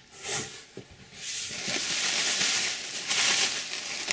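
Plastic air-cushion packing pillows rustling and crinkling as hands push and pull them about inside a cardboard shipping box, starting about a second in.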